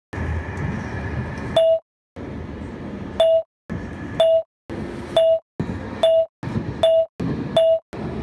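Short snatches of a moving train's running noise, heard from inside the carriage, each cut off by a bright chime-like ding followed by a brief silence. This happens about seven times, roughly once a second, and the dings are the loudest sound.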